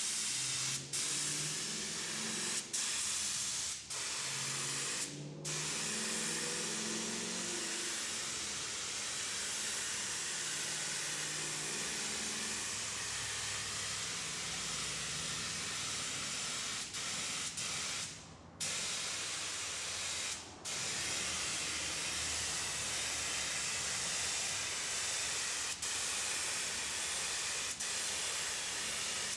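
Primer being sprayed: a steady hiss of spray, cut by brief pauses where the spray stops for a moment, several in the first five seconds and two more past the middle.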